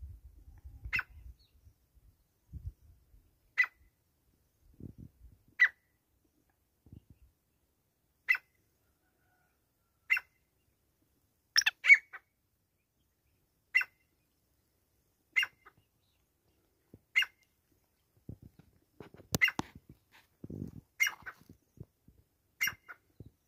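Male black francolin giving short, sharp single call notes, one about every one and a half to two seconds, with two in quick succession around the middle.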